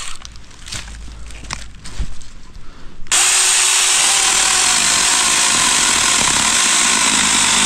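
Battery-powered mini chainsaw running and cutting firewood, a loud steady buzz that starts about three seconds in. Before it, a few light knocks and clicks of wood and the saw being handled.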